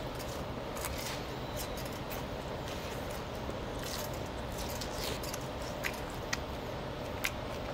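Chewing a mouthful of crispy fried sweet-and-sour pork (guobaorou), with a few short sharp clicks over a steady background hum.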